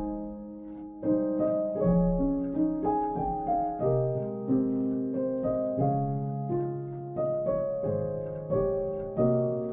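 Background piano music: a slow, gentle melody of single notes and chords, each struck sharply and fading, about two a second.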